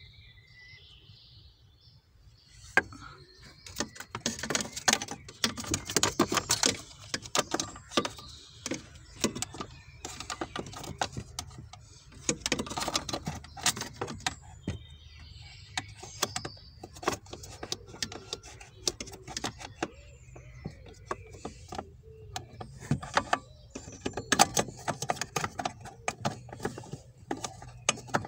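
Irregular plastic clicks, knocks and rustling of car interior parts and wiring being handled and worked loose, starting about three seconds in.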